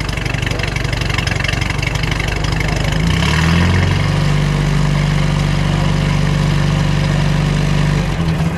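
1954 Sunbeam-Talbot 90's four-cylinder engine at the tailpipe, idling, then given a slight rev about three seconds in. It is held at a raised, steady speed for several seconds and drops back to idle near the end.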